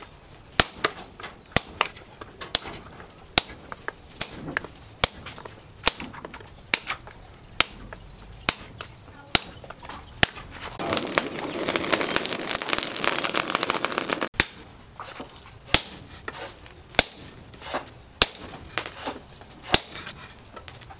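Hand hammer striking a red-hot cleaver blade of plough-disc steel on an anvil: sharp blows at a steady pace of a little over one a second. About eleven seconds in, a dense rattling noise takes over for about three seconds, then the blows resume.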